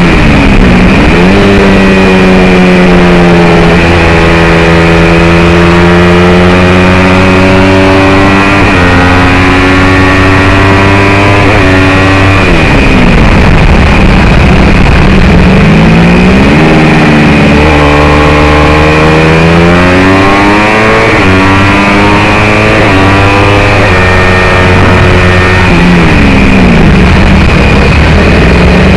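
Race motorcycle engine heard on board at full throttle, its pitch climbing in steps with a sudden drop at each upshift. Around the middle the throttle closes and the pitch falls away for braking, then it climbs again in shorter bursts through the corners, over steady wind noise on the microphone.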